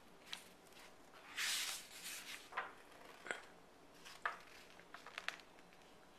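A page of a hardcover picture book being turned: a papery swish about a second in, followed by several light clicks and taps as the book is handled.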